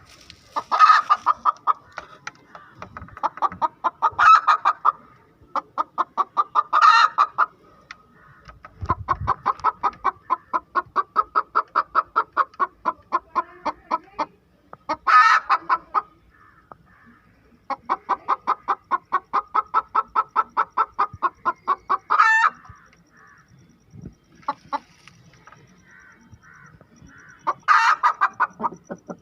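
A hen's egg song, the laying cackle she gives after laying an egg. Long runs of rapid clucks, about six a second, are broken every few seconds by a louder, drawn-out call.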